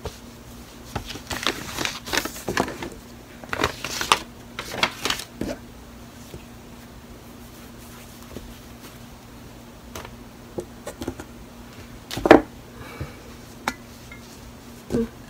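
Rustling and soft taps of hands handling a piece of crochet work in thick ribbon yarn and a paper pattern sheet on a table. The handling is busiest in the first five seconds, with a sharper knock about twelve seconds in, over a faint steady hum.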